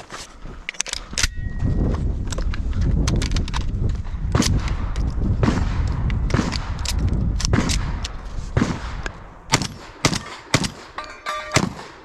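Heavy low rumble of handling or wind noise on the microphone, with scattered sharp clicks and knocks; the rumble eases after about eight seconds, leaving a few louder sharp knocks near the end.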